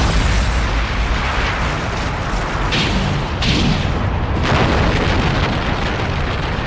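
Anime sound effects of a giant robot breaking out of the ground: a steady heavy rumble and booming, with several sharp crashes a few seconds in.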